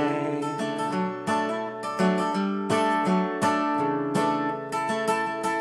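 Acoustic guitar with a capo, strummed in a steady rhythm of chords, with no voice over it.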